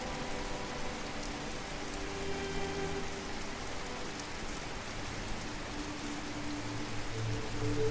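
Waterfall water rushing in a steady hiss, with soft held musical notes laid over it that grow louder near the end.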